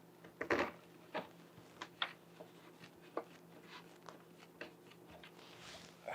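Faint, irregular light clicks and taps of small parts being handled as a clear plexi panel corner is worked into a wooden PC case frame.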